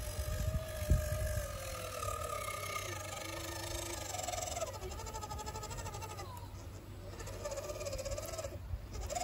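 Electric motor and two-speed gearbox of an MN D99S RC Land Rover Defender crawler whining as it creeps over grass, the pitch falling in the first few seconds and then wavering.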